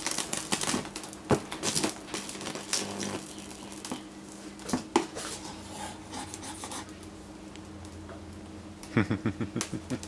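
High-voltage arc from a microwave oven transformer crackling and buzzing against a broken LCD TV panel over a low transformer hum, dying out about three seconds in. After that come a few scattered sharp snaps, then a quick run of about eight clicks near the end.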